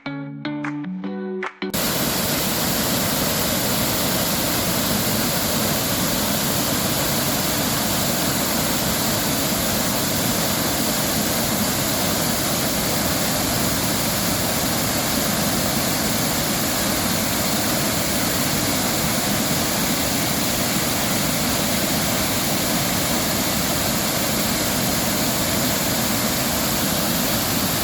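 Small waterfall pouring, a steady dense rush of water that cuts in suddenly about two seconds in, after a short stretch of guitar music, and stops abruptly at the end.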